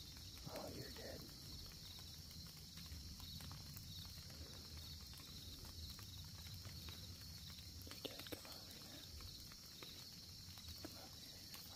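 Faint rustling and footsteps of white-tailed deer moving through dry leaf litter, with a couple of sharper crackles about eight seconds in, over a steady high-pitched hiss.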